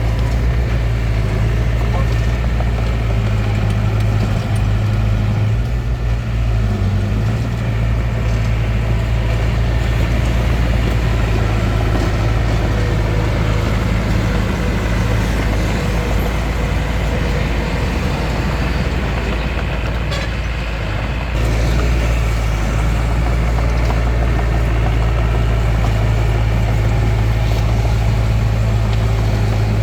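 Small bulldozer's diesel engine running as it works. The low engine drone eases for a few seconds midway, then comes back strongly about two-thirds of the way through.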